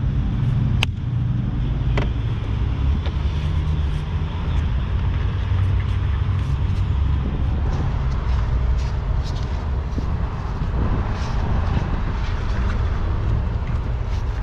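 Plastic clips on an engine air filter housing snapping shut: two sharp clicks about a second apart near the start, with a few fainter ticks later. Under them runs a steady low rumble.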